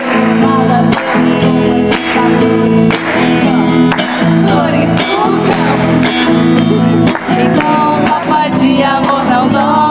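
Live music: an acoustic guitar strumming chords with a steady beat about once a second, under a singing voice carrying the melody.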